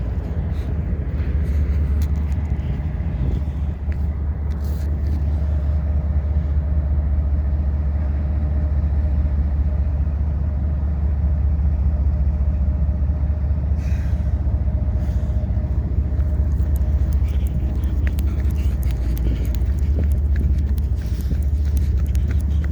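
Steady low vehicle engine rumble, unchanging in level throughout.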